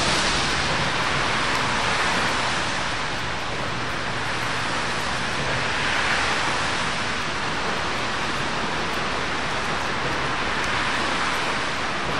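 Steady rushing noise of a steam-hauled passenger train running past and away: the coaches' wheels on the rails and the exhaust of the LNER Peppercorn A1 locomotive Tornado blend into one even sound with no clear beats.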